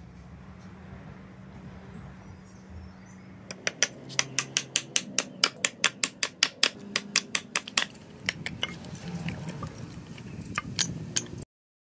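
Steel claw hammer on a vintage Keen Kutter head driving a nail into a wooden board: a fast, even run of blows, about five a second, starting a few seconds in. A few scattered clicks follow as the claw works a nail back out.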